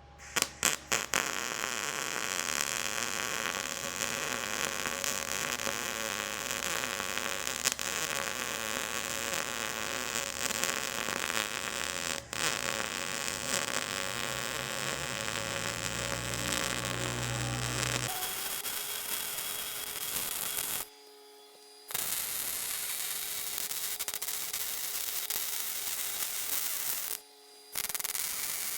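Electric arc welding: the arc crackles steadily after a few stuttering strikes as it catches, then stops briefly twice and starts again as new beads are laid.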